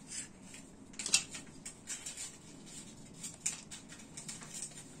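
Plastic parts being handled and clicked into a plastic clamp: scattered light clicks and rattles, the sharpest about a second in.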